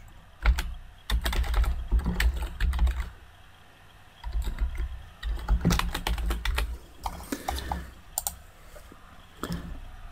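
Typing on a computer keyboard: two quick runs of key clicks with a short pause between them, then a few single keystrokes near the end.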